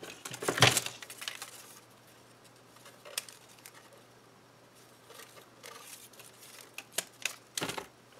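Paper-craft handling noise: a burst of rustling and crinkling about half a second in, as a roll of glue dots and a die-cut paper spider web are handled, then scattered light clicks and taps on the work mat, several in quick succession near the end.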